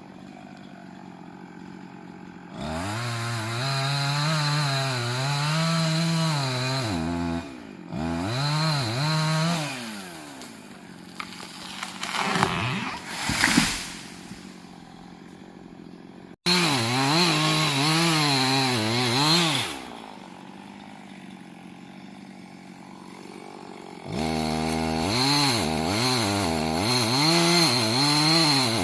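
Two-stroke chainsaw cutting trees, revving up and down under load several times and dropping back to idle between cuts. There are a few sharp knocks in the middle.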